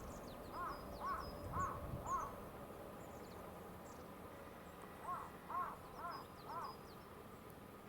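A bird calling in two runs of four short calls, about two a second, with a pause of about three seconds between. Fainter high chirps from small birds come and go above it.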